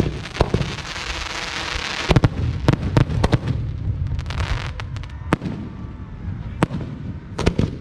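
Fireworks going off: a string of sharp bangs from bursting shells, with a dense crackling hiss in the first couple of seconds and a low rumble throughout.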